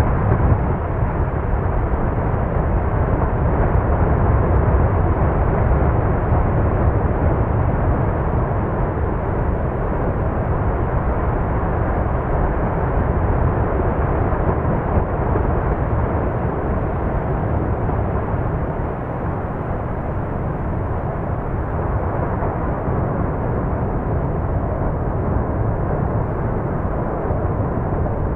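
Lava fountain jetting from an erupting crater: a steady, deep rushing noise that eases slightly about two-thirds of the way through as the fountain dies down.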